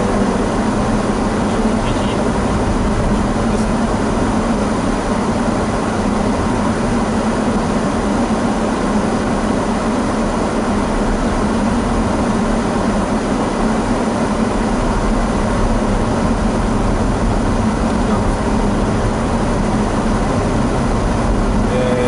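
Steady in-cabin noise of a Daihatsu Rocky 4WD driving on a snow-covered road: tyre noise and the engine running at an even speed.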